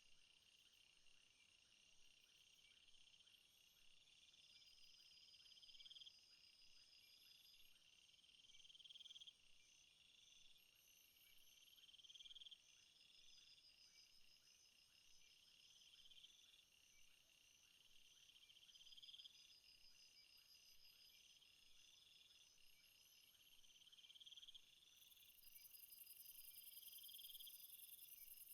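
Faint chorus of night insects in a rainforest. Several high trills run steadily, while one call swells for about two seconds and stops, repeating roughly every three seconds. A higher, hissing buzz joins near the end.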